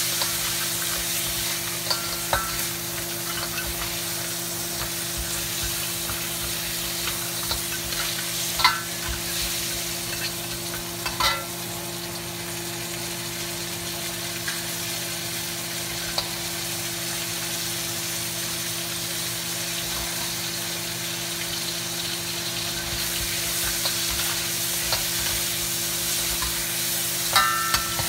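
Spice-coated blue crabs sizzling as they fry in oil in a wok, over a steady low hum. A few sharp clinks of the spatula against the wok come as the crabs are turned: once near the start, twice around a third of the way in, and a cluster near the end.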